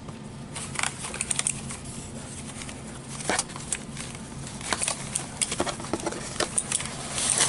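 Packaging being handled during an unboxing: irregular rustles and small clicks of paper and plastic, growing into louder continuous rustling near the end.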